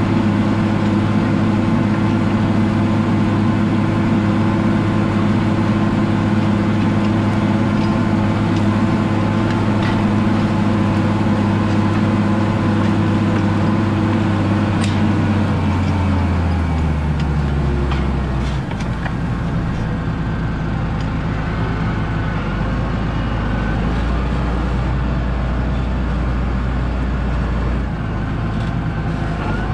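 Tractor engine running steadily, then slowing, its pitch dropping between about 16 and 19 seconds in, and running on at a lower speed.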